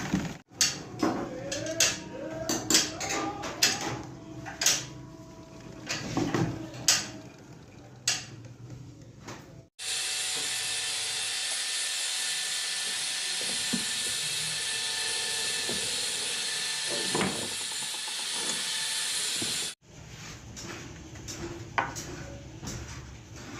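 Sharp, irregular metal clicks and knocks from a sewing machine head as its parts are fitted and adjusted by hand. About ten seconds in, a steady hiss starts abruptly, runs for about ten seconds and cuts off suddenly, and the scattered clicks resume.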